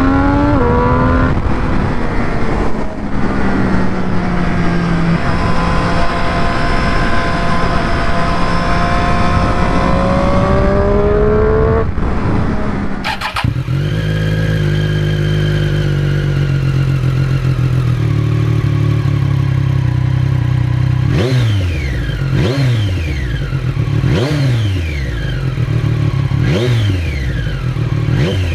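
A 2018 Triumph Street Triple RS's 765 cc inline-three engine through an Arrow slip-on exhaust. First it is ridden, with an upshift or two and a long pull under way. After a cut about 13 seconds in, it idles at a standstill, and from about 21 seconds it is free-revved in quick throttle blips, about one a second.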